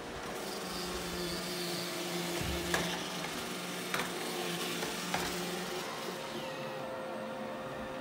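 iRobot Roomba e5 robot vacuum running: a steady motor hum under the hiss of its brushes and suction, which swells and then fades near the end. Three sharp knocks come a little over a second apart in the middle.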